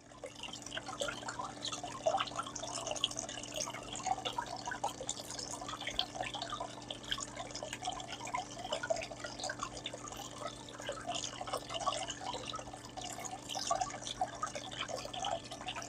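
Water jets spraying and dripping inside a Goldbox gold concentrator's clear cover as it washes heavy volcanic black sand: an irregular patter of small splashes over a steady low hum.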